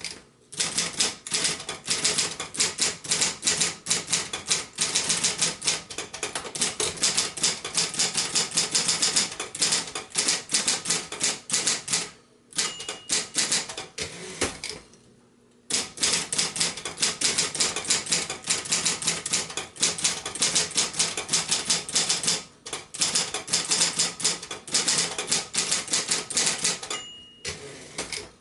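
1972 Royal Apollo 12-GT manual typewriter being typed on at a brisk pace: fast runs of type-bar strikes, several a second, broken by short pauses. A single ding of the line-end bell sounds near the end.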